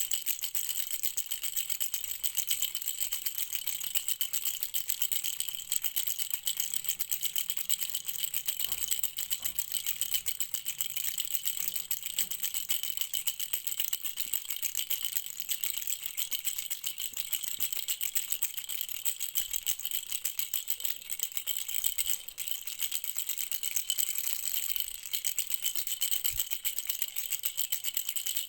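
Baby rattle shaken continuously: a fast, even, high-pitched rattling with no pauses.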